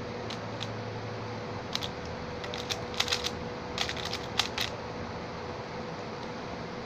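Plastic clicking of a Lexin stickerless 3x3 speedcube's layers being turned fast by hand in a solve, coming in short clusters of clicks with gaps between, over a faint steady hum.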